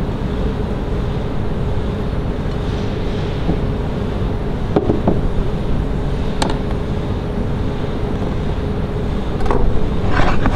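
Steady low rumbling noise with a faint even hum, and a few light taps of kitchen utensils about five and six and a half seconds in.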